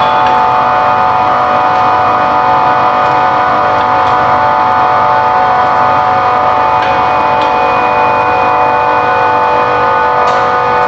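Loud, steady machinery drone with several fixed high tones over a low rumble and a few faint clicks: mechanical equipment running in a chiller plant room.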